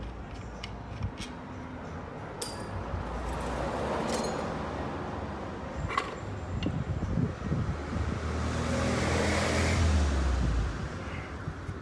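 A motor vehicle's engine and road noise swelling and fading twice, loudest about nine to ten seconds in. A few sharp metallic clinks come from transmission parts being handled.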